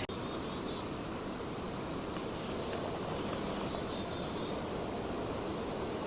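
Steady outdoor background noise, an even rushing sound, with a few faint short high chirps.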